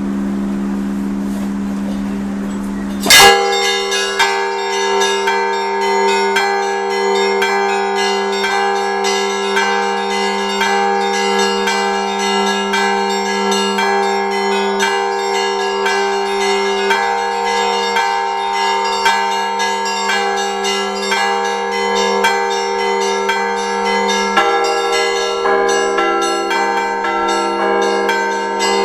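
Russian Orthodox church bells rung together in a peal. A steady low hum comes first; about three seconds in, a loud stroke starts dense, rapid strokes of many bells of different pitches over a deep bell ringing through.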